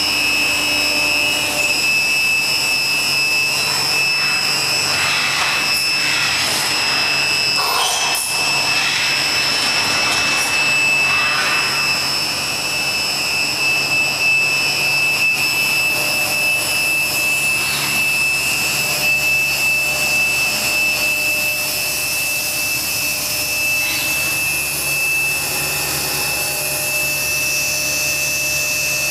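Stama MC-331/TWIN vertical machining centre running: a steady high-pitched whine over a hiss, with a few brief louder noises between about five and eleven seconds in.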